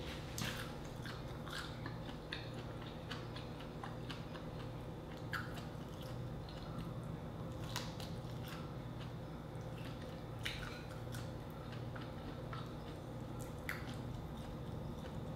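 Close-miked chewing and mouth sounds of someone eating grilled shrimp and rice: irregular wet smacks and clicks every second or so, over a steady low hum.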